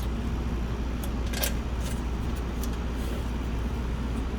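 A steady low background hum, with a few light clicks of a small screw and nut being handled against the charcoal chimney starter's sheet-metal base.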